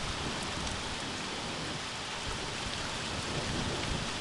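Steady rain falling during a thunderstorm, with a low rumble of thunder underneath.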